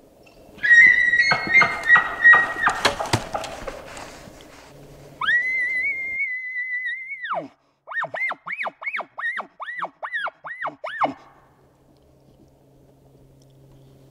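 Elk bugle: a high whistle breaking into rapid falling notes and grunts, then a long high whistle held about two seconds before it drops away, then a run of about nine swooping chuckles, about three a second.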